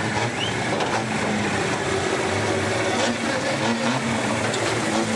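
Engine of a rally competition vehicle running at low revs, over a steady background din.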